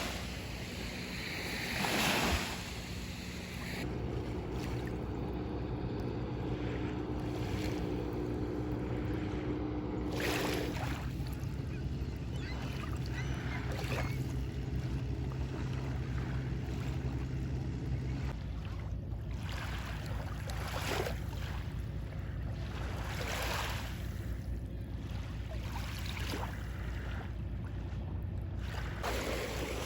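Small Lake Michigan waves washing onto the beach, several surges swelling and falling back a few seconds apart over a steady wash, with a faint steady low drone underneath.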